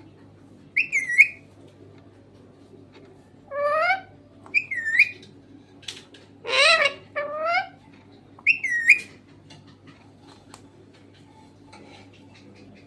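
Green parrot whistling and calling in short bursts, some phrases with rising, voice-like tones as if mimicking speech.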